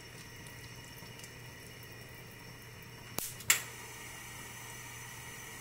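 Pot of chicken egg-drop soup simmering on a gas burner: a steady low bubbling hiss. About three seconds in come two sharp knocks a third of a second apart, the second much louder.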